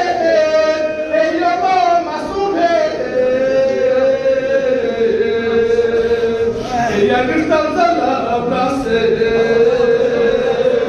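A man chanting a marsiya, a Shia mourning elegy for Ashura, solo and unaccompanied. He holds long notes that slide up and down in pitch.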